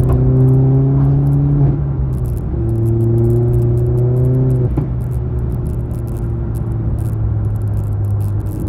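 Cabin sound of a Mk1 VW Golf with a 20-valve four-cylinder engine on the move: the engine note climbs a little and then drops at gear changes, about two seconds in and again near five seconds, with light rattles in the cabin.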